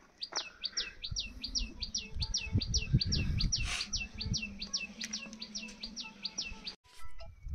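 A bird calling a long run of short, sharp, high notes, repeated evenly about three times a second and stopping shortly before the end. A low rumble sits under the calls in the middle.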